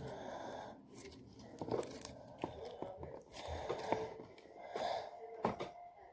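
Homemade slime being squished and stretched by hand, with irregular wet clicks and crackling pops.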